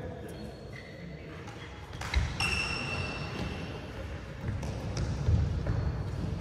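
Badminton play on an indoor court: a sharp smack of a racket hitting the shuttlecock about two seconds in, a short high squeak of a sneaker on the court floor right after it, and footsteps thudding on the court later on.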